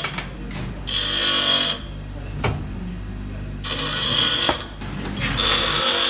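A grinder running, with a high-pitched metallic screech in three bursts of about a second each as a metal part is pressed against the spinning wheel, over a steady motor hum.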